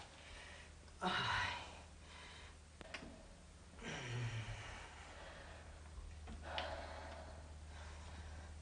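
A woman's breathy sighs and gasps, three spaced a couple of seconds apart; the one about four seconds in slides down into a low groan. A faint steady low hum runs underneath.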